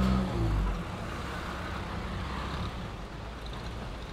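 A vehicle engine idling steadily winds down and stops about half a second in. A steady hiss of rain remains.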